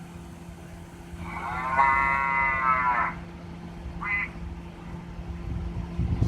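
Custom car horn speaker playing a cow moo sound effect: one moo of about two seconds, pitch rising then falling, then a short blip near four seconds, over a steady low hum.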